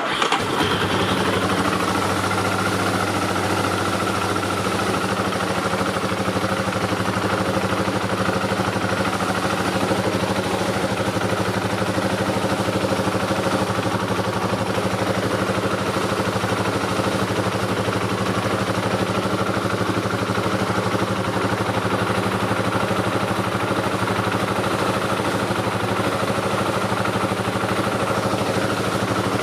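Yamaha Terrapro utility vehicle's engine starting and then idling steadily.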